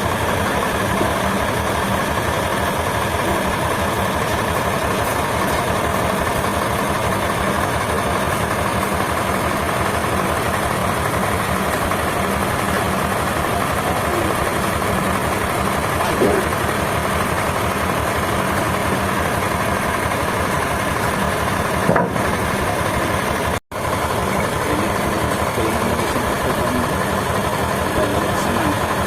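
An engine runs steadily with a constant hum, broken once by a sudden brief cut-out about two-thirds of the way through.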